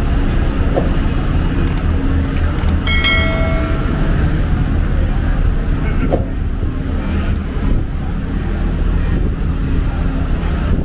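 Steady city street traffic rumble, with a brief pitched tone about three seconds in.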